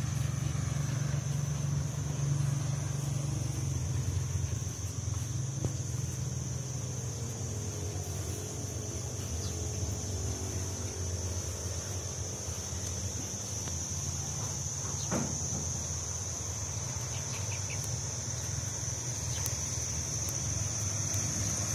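A steady, high-pitched insect chorus over a low, steady rumble of distant traffic.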